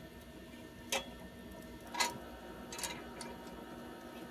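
A few sharp metallic clicks and taps, about one a second, as a wrench works the nut of an old exhaust muffler clamp.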